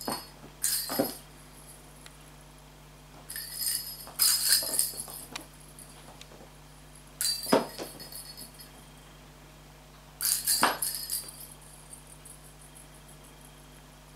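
Small plastic toy balls batted by a kitten, knocking on and rolling across a hard wooden floor with a high, ringing rattle, in about five bursts a few seconds apart.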